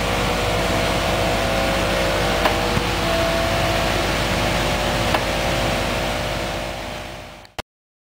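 Bobcat skid-steer loader fitted with a stump grinder attachment, running steadily, with a couple of sharp clicks. The sound fades and cuts off abruptly near the end.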